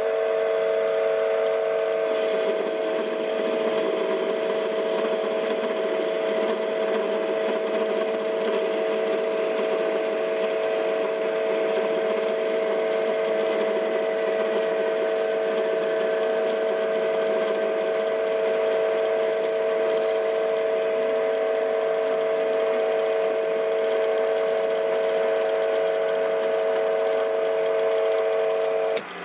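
TV16 lathe running steadily with a whine, turning a duralumin blank, with a higher cutting hiss joining about two seconds in. The lathe stops just before the end.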